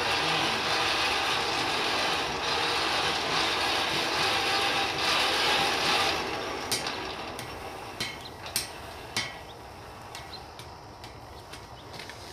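A steady rushing hiss from the coal forge's air blast and fire, which fades out about halfway through. It is followed by a few sharp metallic clicks and taps.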